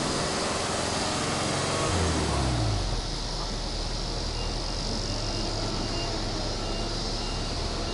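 Subaru Legacy 2.0R spec.B's EJ20 flat-four engine heard at the exhaust. It is revved once with the car standing, falls back about three seconds in, and then idles steadily.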